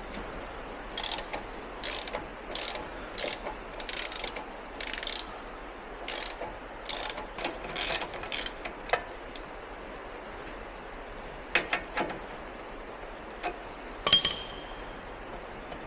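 Metallic ratchet-like clicking from hand work on a small square baler's mechanism: a run of short clicks about twice a second, then a few scattered ones, the loudest near the end.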